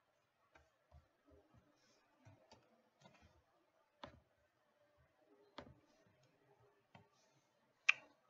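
Faint, scattered clicks of a computer mouse and keyboard, about one a second, with a sharper click near the end.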